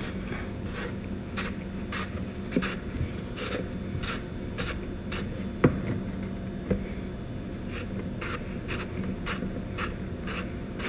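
Steel 3/8-inch NPT pipe fitting being turned by hand into a hole in a plastic air-intake duct. Its threads cut into the plastic with a steady run of scraping clicks, about two or three a second. There are two louder knocks about halfway through.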